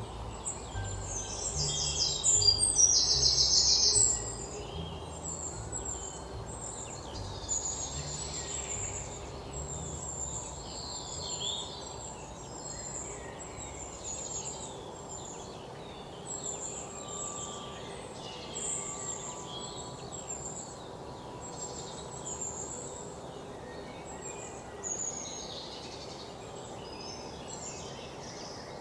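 Many birds chirping and singing at once, a continuous chorus of short high calls and trills, with a loud buzzy trill about two to four seconds in. A low steady background noise runs underneath.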